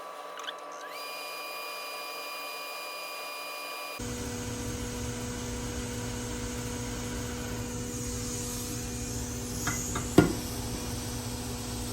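Steady whine of electronics-repair bench equipment that rises in pitch about half a second in and then holds. A little before the midpoint it changes abruptly to a steady hum. Two sharp clicks come near the end, the second the loudest.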